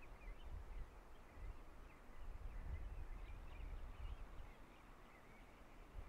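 Faint distant birds chirping, many short calls scattered throughout, over a low, uneven rumble of wind on the microphone.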